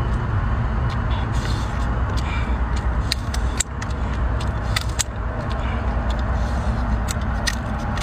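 Kitchen scissors snipping and cracking through cooked king crab leg shell: a scatter of sharp clicks, clustered in the middle and near the end, over a steady low rumble.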